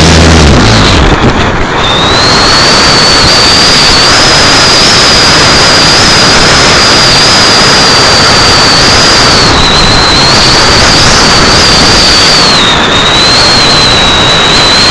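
Motor and propeller of a radio-controlled model plane, heard from its onboard camera: a high steady whine over loud rushing wind and propeller noise on the microphone. The whine's pitch dips briefly twice, about 10 and 13 seconds in, as the throttle changes.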